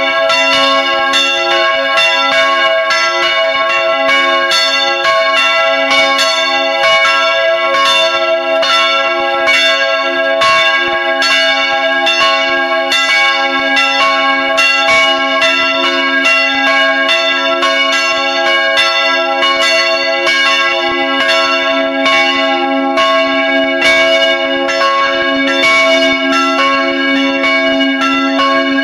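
Swinging church bells ringing in the belfry, heard at close range: a steady run of clapper strikes, a few a second, over the long hum of the bells' ringing tones.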